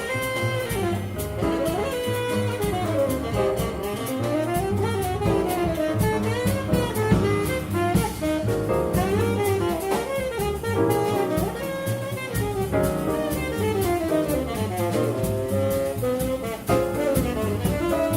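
Live jazz quintet playing: a saxophone runs quick lines of notes that rise and fall, over double bass, piano, guitar and a drum kit keeping time on the cymbals.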